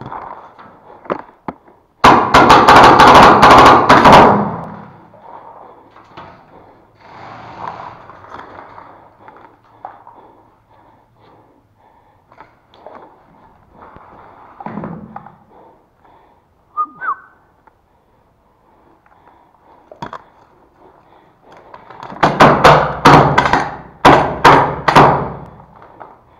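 Paintball marker firing close to the microphone in two rapid strings of shots: one lasting a couple of seconds about two seconds in, and a run of three short bursts near the end. Scattered light knocks and thuds come in between.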